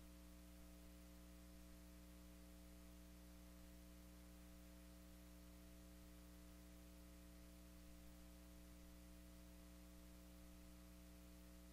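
Near silence with a faint, steady electrical mains hum and light hiss.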